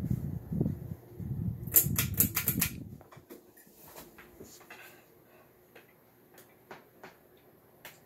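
Litex Vortex hugger ceiling fan running, with a low, uneven rumble for the first three seconds and a quick run of sharp clicks about two seconds in. After that the sound drops to a faint steady hum with a few scattered light clicks.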